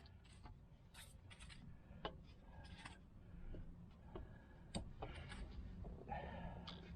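Faint scattered taps, clicks and light scrapes of hands working a level against a fence post, with a short rasping scrape about six seconds in.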